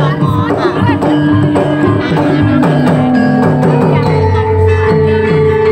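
Live Javanese gamelan accompaniment for a Cakilan dance: bronze metallophones ringing held notes over regular hand-drum strokes.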